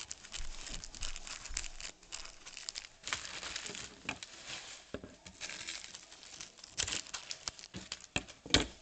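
A Topps Chrome trading-card pack wrapper crinkling and tearing as it is torn open by hand, with a run of small crackles and one sharper snap near the end.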